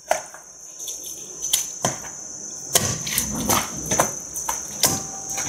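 Hands mixing and rubbing salt into a raw slab of pork belly in a basin: irregular slaps and knocks of meat and hands against the bowl, getting busier about halfway through.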